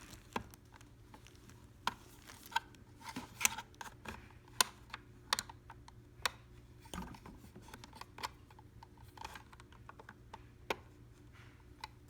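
Scattered, irregular clicks and light taps of hands handling a small plastic mini sewing machine while threading it, over a faint steady low hum.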